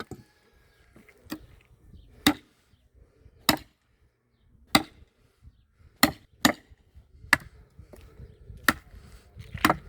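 Sledgehammer striking a wedge driven into a tough firewood log: about ten sharp strikes, roughly one a second.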